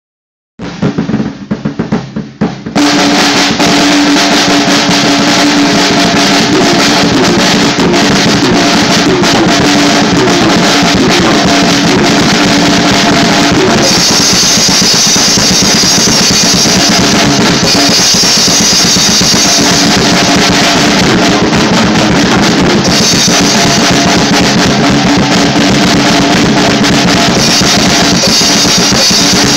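Loud drum-kit music: a few separate hits, then from about two and a half seconds in, continuous, dense drumming with cymbals, very loud throughout.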